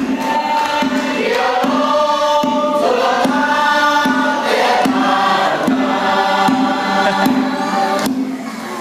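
A group of voices singing a Zomi traditional dance song in a chant-like unison, over a low pulse that repeats about every two-thirds of a second. The singing breaks off near the end.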